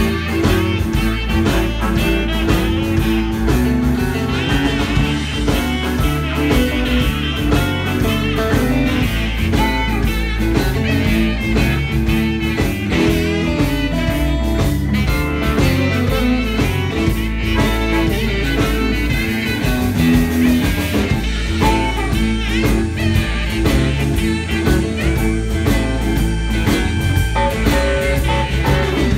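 Live blues band playing an instrumental passage: harmonica and saxophones over electric guitar, bass, keyboard and drums.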